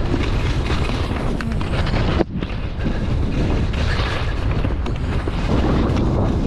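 Wind buffeting the microphone during a downhill ski run: a loud, low, rumbling rush, with the hiss of skis sliding over snow. It drops out briefly a little after two seconds in.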